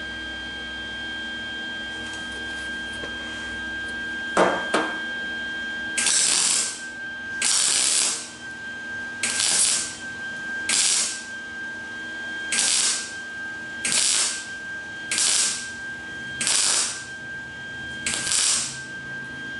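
MIG welder laying a row of short tack welds along the steel edge of an MGB door skin: about nine crackling bursts, each around half a second long and one to two seconds apart. Two sharp clicks come just before the welding starts.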